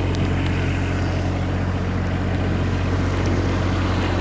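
Diesel engine of a Vote 1.8-ton mini excavator idling steadily, warming up ahead of an oil change.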